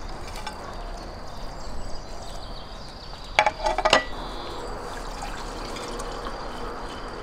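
Wine poured from a terracotta clay jug into a drinking glass. A few loud glugs about three and a half seconds in, then a steady pouring trickle.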